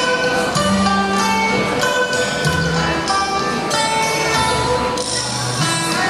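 Music with a plucked-string melody over held bass notes and a regular percussion beat.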